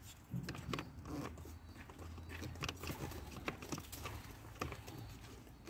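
Faint scattered plastic clicks and taps as the cabin-filter housing cover of a Toyota Avensis T25 is handled and fitted over the new filter, over a low steady hum.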